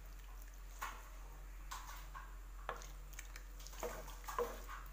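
A spoon stirring a watery brinjal and tomato curry in a clay pot: wet sloshing with a few soft, irregular knocks and scrapes against the pot.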